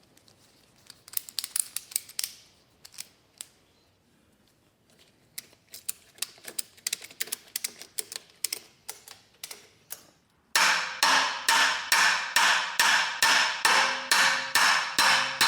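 Hammer striking metal on an engine's fan clutch: scattered light taps and clicks, then about two-thirds of the way in a steady run of hard blows, roughly two and a half a second, each ringing on. It is an attempt to break loose a stuck fan clutch nut without the proper removal wrench.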